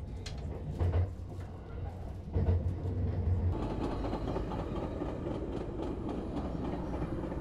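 Passenger train running on rails: a steady rumble with a low hum, with a run of clicks and knocks over the first few seconds before it settles to an even rumble.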